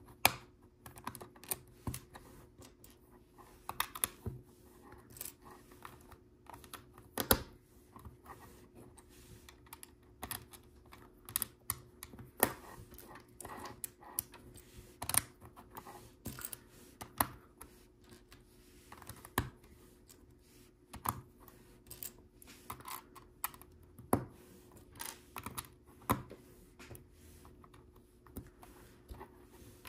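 LEGO plastic pieces being handled and pressed onto a build: irregular sharp clicks and taps, some single and some in quick clusters.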